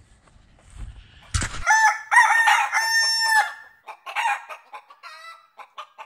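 A rooster crows once, loud and drawn out for about two seconds, starting about a second and a half in, followed by a few short clucks near the end.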